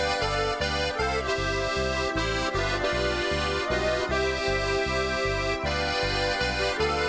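Instrumental folk music played on accordion, held melody chords over a steady bass beat of about three notes a second.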